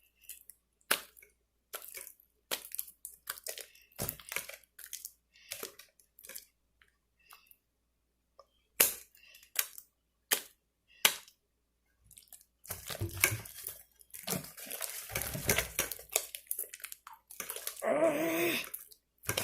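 Sticky glue slime being squeezed and kneaded by hand: scattered wet clicks and squelches, then a denser stretch of squishing over the last several seconds, with a short pitched squeal near the end.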